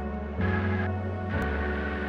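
Background music: sustained chords over a deep bass, with a new bass note coming in about half a second in and again about a second later.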